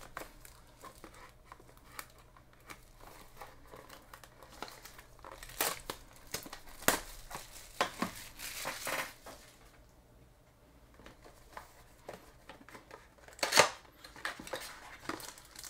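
Trading-card pack wrapper crinkling and tearing as it is handled and opened by hand, in several short bursts with quieter gaps between, the loudest near the end.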